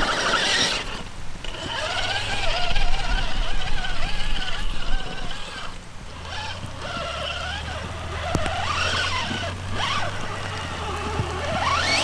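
Traxxas TRX-4 RC crawler's sensored brushless electric motor and drivetrain whining as it drives through mud and grass. The pitch wavers with the throttle, and a few quick rising revs come near the end.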